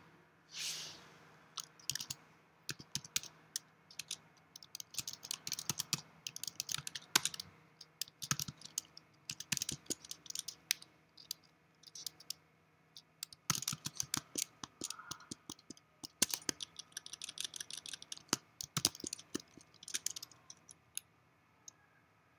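Typing on a computer keyboard: irregular runs of keystrokes with short pauses, breaking off for about a second near the middle and stopping shortly before the end.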